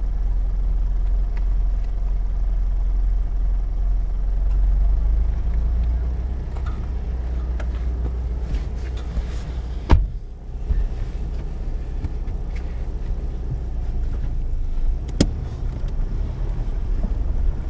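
Four-wheel drive's engine and drivetrain running off-road as a steady low rumble, heard from inside the cabin. Two sharp knocks come about ten and fifteen seconds in.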